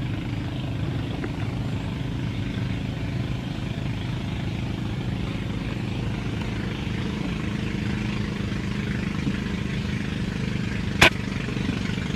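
A single sharp rifle shot about eleven seconds in, fired at a bird through a telescopic sight, over a steady low engine-like hum.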